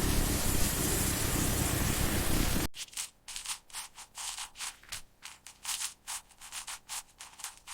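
A steady rushing hiss that cuts off abruptly a little under three seconds in, followed by quick back-and-forth sanding strokes, several a second.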